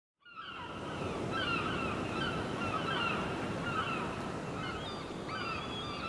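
Ocean surf washing steadily, fading in at the start, with many short falling bird calls repeated over it.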